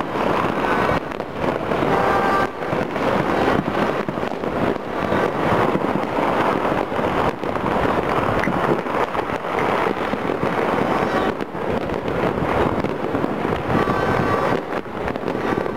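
Fireworks and firecrackers going off all across a city, heard from afar: a dense, unbroken crackle of many overlapping bangs.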